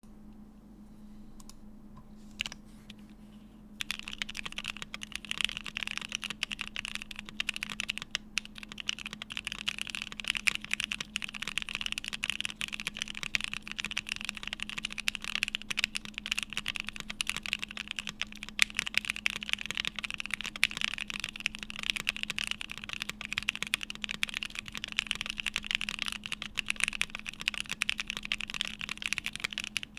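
Mechanical keyboard with stock Gateron Oil King linear switches in an FR4 plate, typed on continuously. There are a few single key presses at first, then steady fast typing from about four seconds in. A faint steady hum runs underneath.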